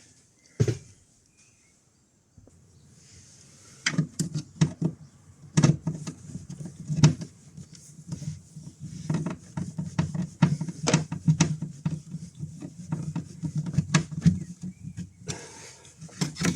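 Irregular knocks, clicks and rubbing from hands working cable and hose through a boat's hull. A single click comes near the start, then a short quiet gap, and the handling noises begin about four seconds in and continue thickly.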